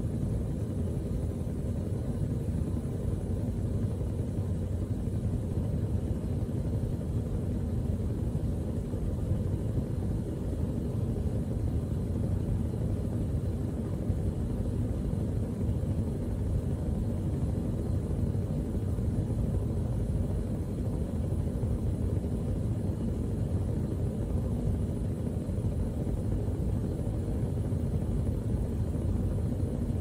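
Gas stove burner alight, its flame burning with a steady low rumble that does not change.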